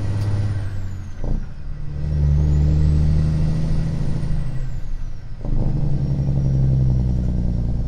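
Straight-piped Caterpillar 550 hp diesel in a Western Star truck, heard from inside the cab, pulling with a deep drone and a high turbo whine that rises and falls. The sound drops out briefly twice, about a second in and again about five seconds in, as between gear shifts.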